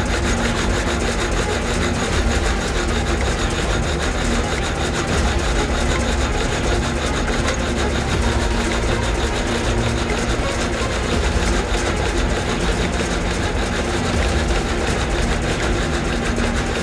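Old belt-driven sawmill running steadily, its blade cutting through a large log, with a low drone beneath the rasp of the cut.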